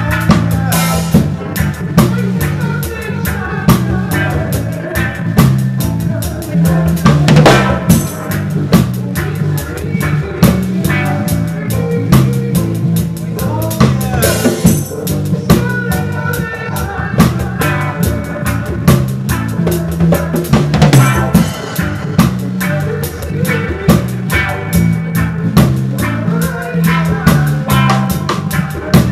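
Live reggae band playing, the drum kit close and loud, with snare, rimshot and bass drum hits over a repeating low bass line.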